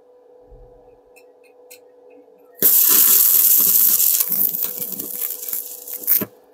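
Stick (MMA) welding arc, set to about 85 amps, struck about two and a half seconds in: a loud steady hiss with irregular pops for about three and a half seconds while a single short weld is laid, then it cuts off abruptly.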